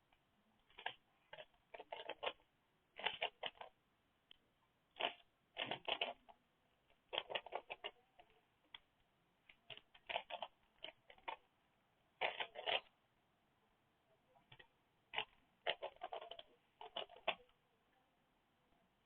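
Rubik's Cube layers being turned by hand during a speed solve: short bunches of quick clicking turns with brief pauses between them.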